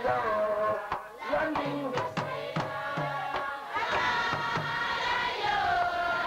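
Live music: a lead voice sings over sharp, regular drum strokes, and about two-thirds of the way through a group of voices joins in a chant.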